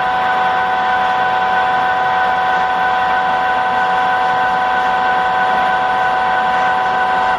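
Nomura NN32YB2 CNC Swiss-type lathe running: a steady, high-pitched machine whine made of several held tones over a mechanical hum. It cuts off suddenly at the end.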